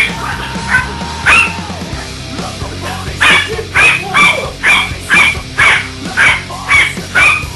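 Dog barking, two barks in the first second and a half, then a steady run of about two barks a second from around three seconds in, over music.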